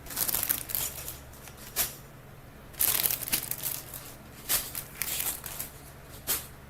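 Plastic LEGO parts bags crinkling and rustling as they are handled, in irregular bursts with a short pause about two seconds in.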